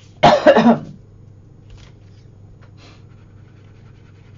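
One short, loud cry with pitch that bends and falls, about a quarter second in, much louder than the speech around it.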